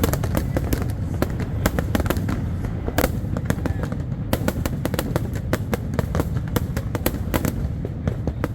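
Fireworks going off in quick succession: many sharp cracks and bangs, several a second, over a continuous low rumble.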